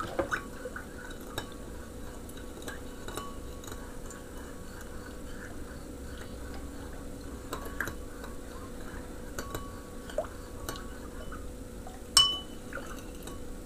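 Metal spoon stirring sugar into warm water in a ceramic bowl: faint scrapes and light clinks of the spoon against the bowl, with one sharper clink near the end.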